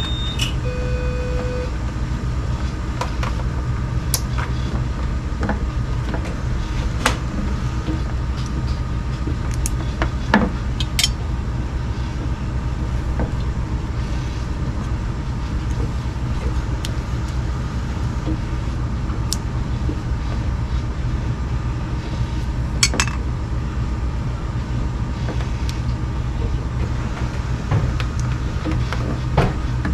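Steady low hum of hemodialysis machines and room equipment, with scattered light clicks and knocks of handling and a short electronic beep about a second in.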